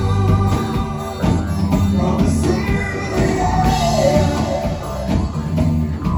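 Live rock band playing: electric guitar, electric bass and drum kit, with a wavering melody line rising over the band around the middle.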